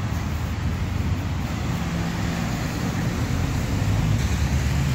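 Steady noise of road traffic, cars driving on a wet road, with a low rumble underneath.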